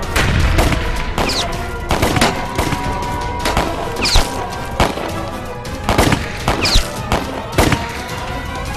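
A film gunfight: revolver and rifle shots crack at irregular intervals, about one a second, with short falling whizzes between them, over a dramatic orchestral score.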